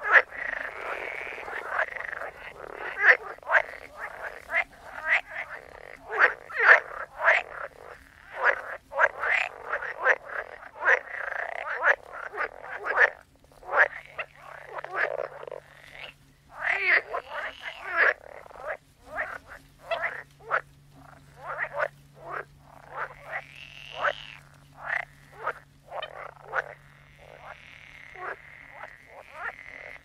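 A chorus of frogs croaking: many short calls overlapping in a dense, irregular stream, with a few pauses of a second or so.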